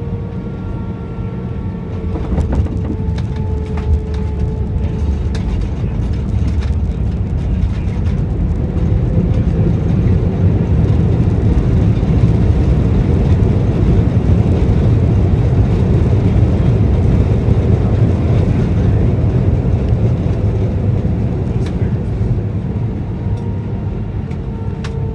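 Airbus A320 cabin noise on landing: a sharp knock about two seconds in, then a low rumbling roar that builds, holds and eases off near the end, as the jet touches down and rolls out under reverse thrust and braking. A faint engine whine sits under the roar at the start and end.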